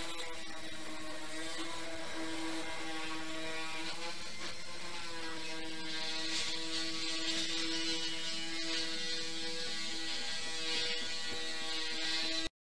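Electric-driven cutter shearing sheet steel with a steady motor hum. A rasping cutting hiss grows stronger from about six to eleven seconds in. The sound stops abruptly just before the end.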